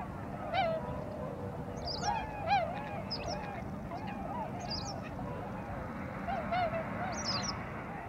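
A flock of waterbirds calling continuously: many short calls that rise and fall in pitch, overlapping one another, with thinner high-pitched calls mixed in.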